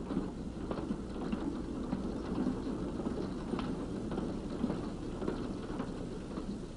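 Empty gondola freight cars rolling along the rails, a low even rolling noise with scattered faint clicks from the wheels.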